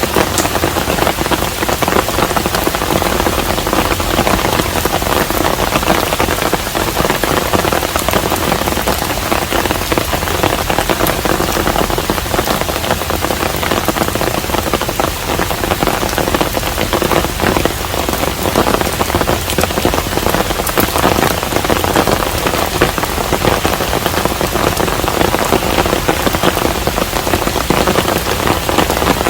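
Steady rain falling on a hanok, a traditional Korean house: an even, unbroken patter made of many close individual drop hits.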